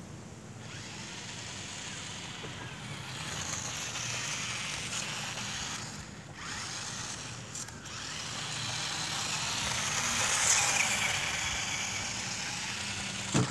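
Battery-powered RC toy car's motor and tyres running, a hissing whir that cuts out briefly twice around the middle and is loudest about ten seconds in. A short knock near the end.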